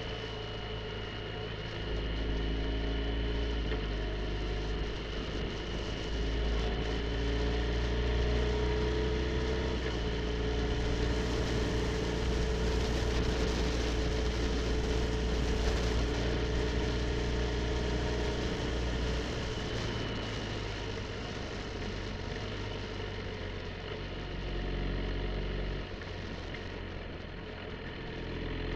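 BMW R1250 GS Adventure's boxer-twin engine running while riding, its pitch shifting with the throttle near the end, under wind rushing over the microphone that grows louder midway.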